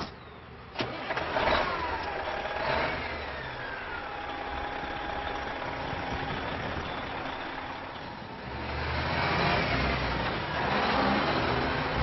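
A vehicle engine starting after a sharp click, with whines rising and falling, then running, its low rumble growing louder near the end.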